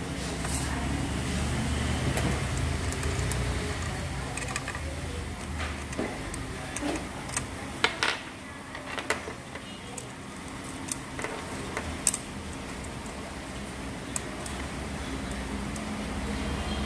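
Scattered clicks, taps and light rattles from a power inverter's cables, clip and ring terminals being handled against its metal case and cardboard box, loudest in the middle. A steady low hum and indistinct voices run underneath.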